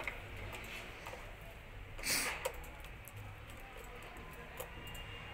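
Faint handling noise: small clicks as fingers work the wires and terminal blocks of a photo beam sensor's relay board. A short rush of breathy noise comes about two seconds in.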